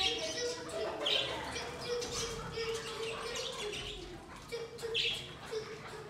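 Small flock of partridges and pigeons calling with short, high chirps, the loudest bursts at the start, about a second in and about five seconds in, with some wing flapping.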